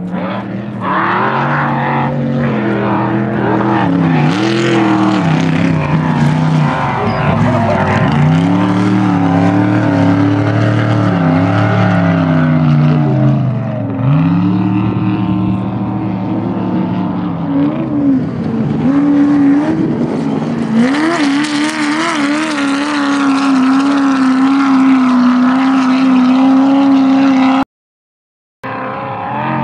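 Desert off-road race truck engines running hard, their pitch dipping and climbing again and again as the drivers lift off and get back on the throttle. In the second half one holds a long, steady full-throttle note. The sound cuts out for about a second near the end.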